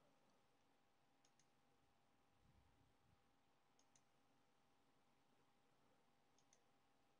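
Near silence with faint computer mouse clicks: three quick press-and-release double clicks, about two and a half seconds apart.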